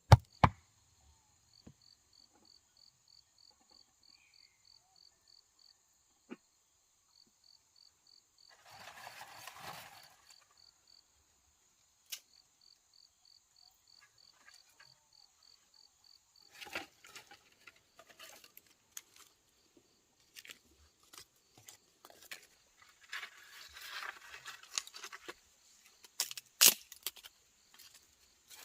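Insects chirping in pulses, about four a second, over a continuous high hiss. One last chop of wood right at the start, then scattered knocks and clicks and two spells of rustling as materials are handled.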